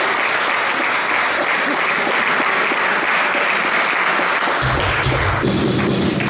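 Spectators in a sports hall applauding after a table tennis rally. A low, steady musical sound joins the clapping about four and a half seconds in.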